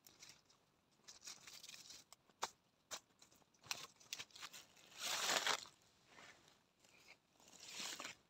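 Broccoli plants being pulled up and handled: faint rustling of leaves and stalks with scattered snaps and crackles, and a louder tearing rustle about five seconds in.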